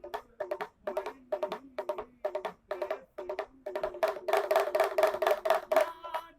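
Small hand drum beaten in quick, rhythmic strokes that run into a denser roll about four seconds in, the kind of drum a street monkey handler plays to make the monkey dance.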